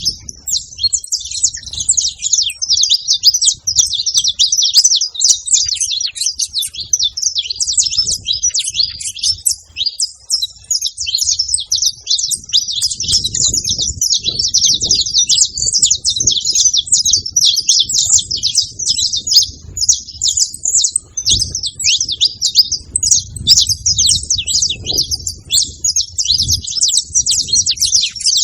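Saffron finch chirping: a rapid, continuous run of high chirps with no pause.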